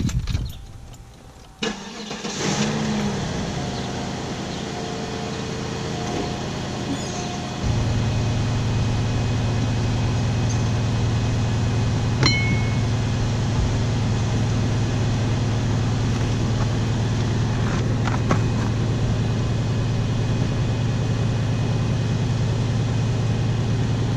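A 2004 Cadillac DeVille's 4.6-litre Northstar V8 starts about two seconds in and settles into a steady idle. About eight seconds in, a steady low hum gets louder and holds.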